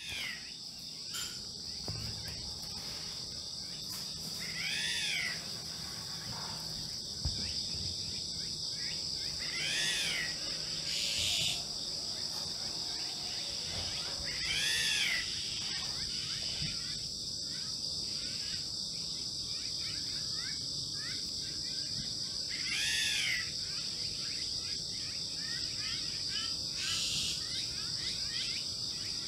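Outdoor ambience of insects shrilling in a steady, high, unbroken tone, with a bird giving a short call four times, several seconds apart, each call a quick falling series of notes.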